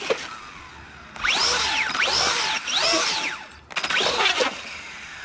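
Electric motor of an upside-down RC buggy revving in short bursts, its whine rising and falling four times as the wheels spin in the air in an attempt to flip it back over. The attempts fail, which the driver puts down to a low battery.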